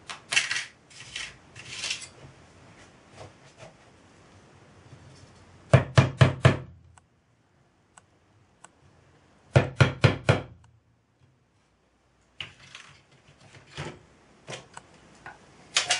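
Scissors snipping thin tinplate. Then, about six and ten seconds in, two quick runs of about four light hammer taps on a nail against a wooden block, starting holes in small tin strips. Lighter clicks and taps of metal pieces follow near the end.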